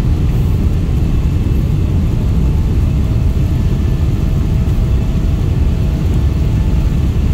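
Cabin noise of a Boeing 777-300ER taxiing: a loud, steady low rumble of the jet engines and the airframe rolling on the ground, heard from inside the cabin. A faint steady whine comes in about three seconds in.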